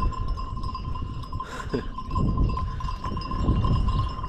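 Bells on a grazing flock of sheep ringing steadily, a continuous thin tinkle, over a low rumble.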